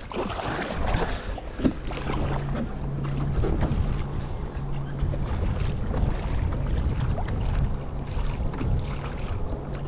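Wind buffeting the microphone, over water splashing and lapping against a moving pedal kayak's hull, with a low steady hum underneath for much of the time.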